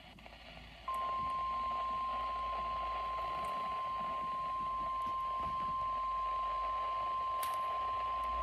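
National Weather Service 1050 Hz warning alarm tone on NOAA Weather Radio, sent as the required weekly test of the alarm that switches on weather receivers. It is one steady, unbroken tone that starts about a second in over faint radio hiss.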